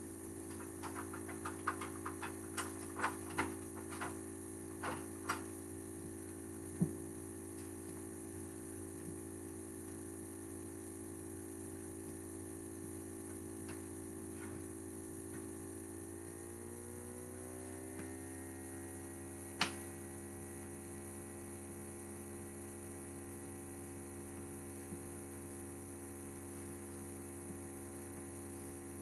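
Block heels of ankle boots clicking on a tile floor in a quick run of taps over the first five seconds or so, with one louder knock soon after and a single sharp click later. Under them a steady multi-toned hum runs throughout, sliding up in pitch a little past halfway and holding at the higher pitch.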